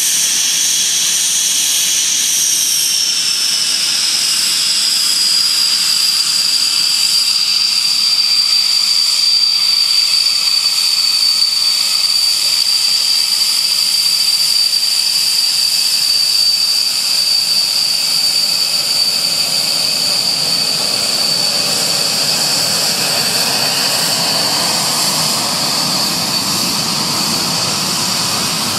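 Twin RB199 turbofans of a Panavia Tornado taxiing. A loud, high-pitched jet whine drops slightly in pitch a few seconds in, then holds steady over rushing jet noise that grows toward the end.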